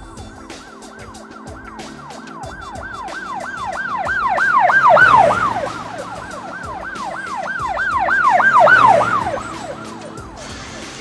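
A siren-like wailing tone sweeping up and down rapidly, about three times a second. It swells loud twice, over background music.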